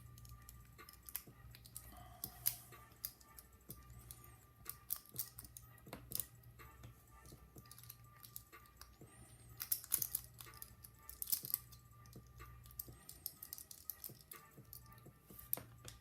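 Irregular small clicks and taps of metal padlock parts and tools being handled while the lock cylinder and its tailpiece are taken apart, over a steady low hum.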